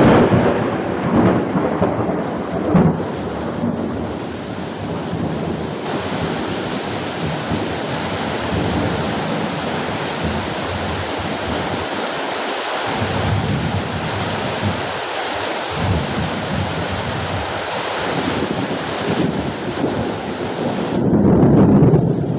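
Heavy rain pouring steadily during a thunderstorm, with rolls of thunder: a loud rumble dying away over the first few seconds and another swelling near the end.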